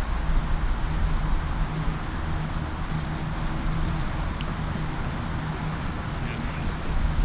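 Steady outdoor background rumble, a mix of wind and distant traffic-like noise with a faint low hum, and one or two faint ticks.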